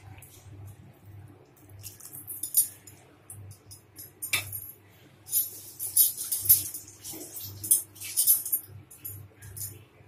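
Spatula scraping and clinking against a metal kadai as a yogurt and cashew gravy is stirred, in irregular strokes that grow louder and busier in the second half.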